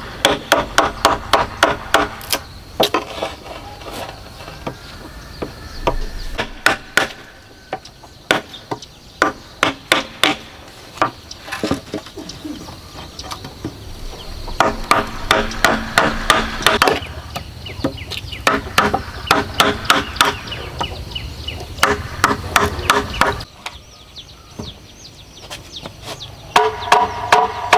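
A metal chisel driven into a bamboo pole by blows from a wooden club, each blow making the hollow bamboo ring. The blows come in quick runs of about four a second, with pauses of scattered knocks between them.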